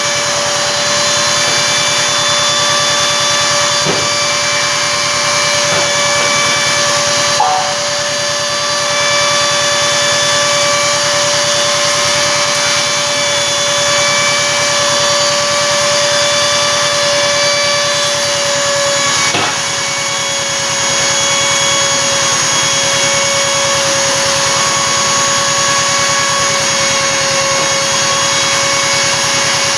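CNC router spindle, a trim-router motor, running at a steady high whine while its bit cuts an outline into a sheet. About twenty seconds in the loudness dips briefly and the whine settles a little lower.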